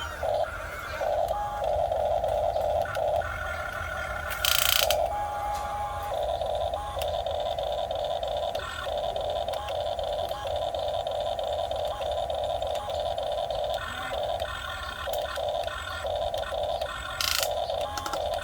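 Small electric motors of a Huina 1550 RC excavator whining in start-stop runs as the boom, bucket and tracks are worked, with two brief harsh scraping bursts about four seconds in and near the end.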